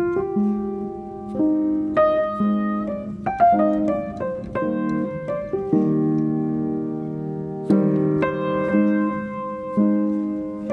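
Background piano music: slow chords and melody notes struck and left to ring.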